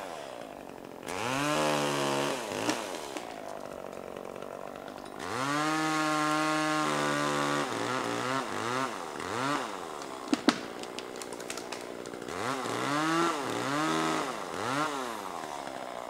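Chainsaw engine revving in repeated bursts, each rising and falling in pitch, with two longer stretches held at high revs and a sharp click about ten seconds in.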